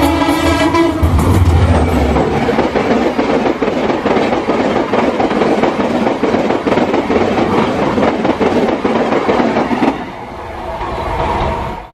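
Indian Railways train passing at speed. A low locomotive rumble and a pitched tone in the first second or two give way to a steady rush of coaches, with rapid wheel clatter over the rail joints. The rush drops away about ten seconds in as the train clears.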